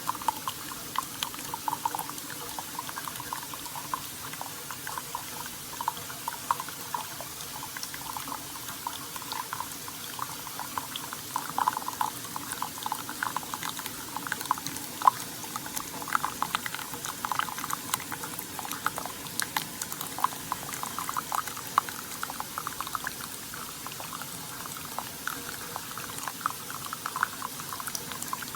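Keurig K-Slim single-serve pod coffee maker brewing: hot liquid bubbling and gurgling, with a steady stream of small pops.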